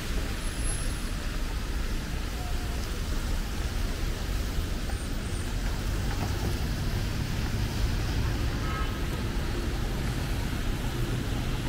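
City street traffic: a steady rumble and hiss of vehicles passing on the road.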